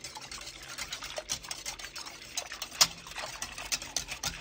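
Wire whisk stirring yogurt starter into warm milk in the Instant Pot's stainless steel inner pot: a quick, irregular run of light clicks and taps of the whisk against the pot, with a few sharper knocks.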